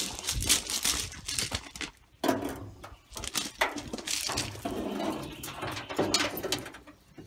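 Irregular scraping, rustling and sharp clicks and clunks of a steel truck hood being handled and fitted onto the truck.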